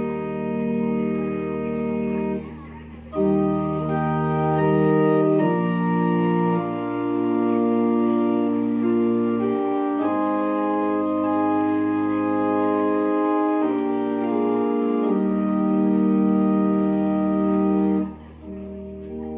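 Organ playing slow, sustained chords, with deep bass notes under some of them. It breaks off briefly about three seconds in and grows quieter near the end.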